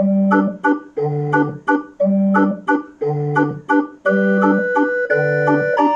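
Electronic barrel organ playing on its plain barrel-organ register, its sampled flute-pipe sound driven by a punched cardboard music book running through an optical reader. Music starts abruptly: a low bass note about once a second with short chord stabs between, under held melody notes.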